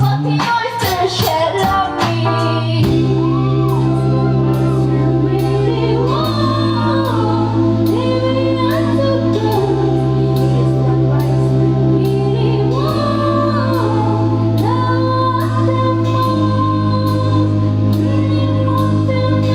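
Live band playing: after a busy drum passage in the first few seconds, sustained low keyboard chords change every three seconds or so under a sliding female vocal line, with steady cymbal ticks.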